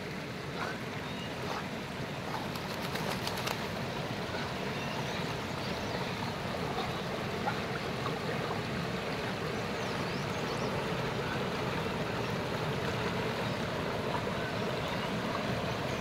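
Steady rush of water in a rocky stream flowing over small rapids, growing a little louder toward the end.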